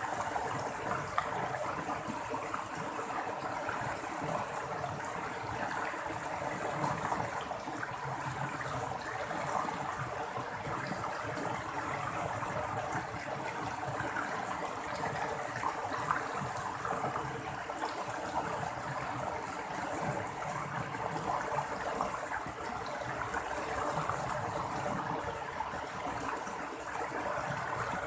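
Running water trickling and splashing steadily, as a small stream flowing.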